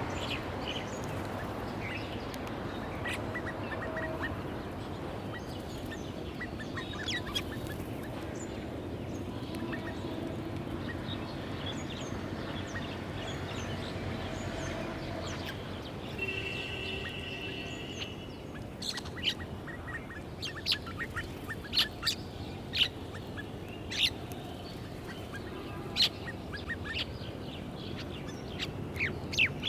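Small birds chirping over a steady background hiss. About 16 seconds in comes a held call with several stacked tones, and from about 19 seconds on, a run of sharp, loud short chirps.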